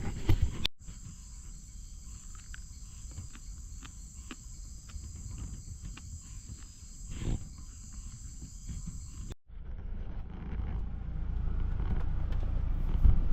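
Insects chirring in a steady high-pitched drone, with scattered faint clicks. About nine seconds in it cuts off suddenly and gives way to a low rumble.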